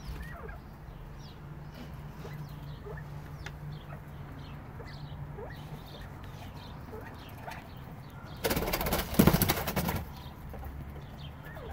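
White bobwhite quail in a pen: faint short chirps, then about a second and a half of loud wing flapping near the end as one bird flutters.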